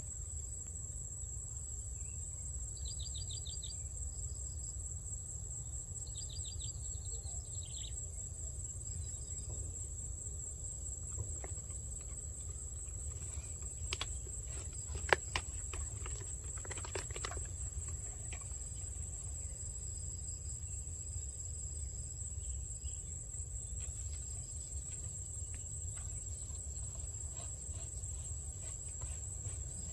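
Outdoor ambience of insects chirping steadily at a high pitch over a low rumble. Short chirping trills come twice in the first eight seconds. A few sharp clicks fall in the middle, the loudest about fifteen seconds in.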